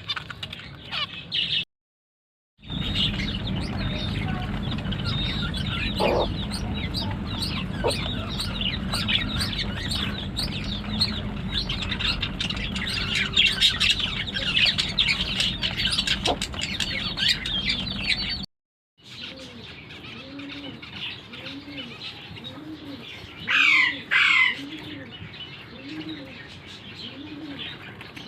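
A flock of caged zebra finches chirping and chattering continuously with many short, high notes. After a cut, doves coo in a slow, even rhythm about once a second, with a loud sharp double call near the end.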